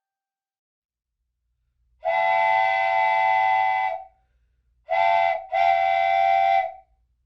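Steam-locomotive-style train whistle blowing three blasts: a long one, a short one, and a medium-long one, each starting and stopping cleanly.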